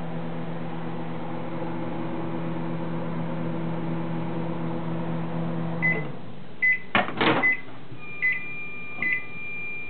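Microwave oven running with a steady hum that stops about six seconds in at the end of its cooking cycle. It then gives a series of short high beeps, about five, roughly a second apart, with a couple of loud clicks among them.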